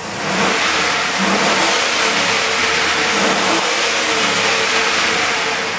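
The 6.0-litre LQ4 V8 of a 2003 Chevy Silverado 2500, revved up from idle and held high at around 5,000 rpm, then easing off near the end, heard from inside the cab. The engine revs up nice and responsive.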